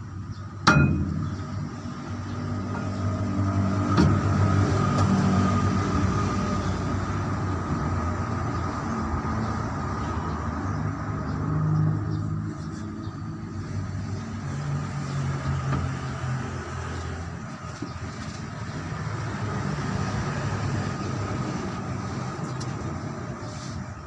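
A sharp metal clank about a second in and another around four seconds, over an engine running steadily with a low rumble.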